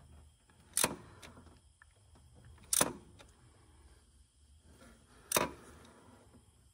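Socket ratchet tightening a bolt into an engine block in short, hard strokes, with a sharp click three times about two seconds apart; the bolt is almost too tight to turn further.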